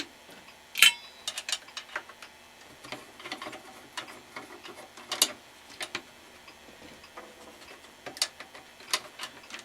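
Screwdriver backing screws out of a metal radio chassis plate: irregular small metallic clicks and scrapes, with sharper clicks about a second in and again about five seconds in.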